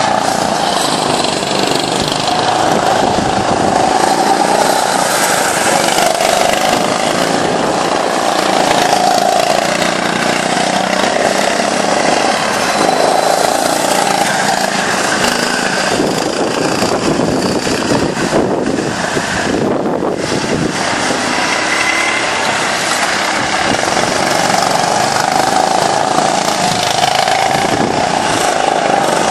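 Go-kart engines running as several karts lap the track, their buzzing pitch rising and falling with the throttle through the corners.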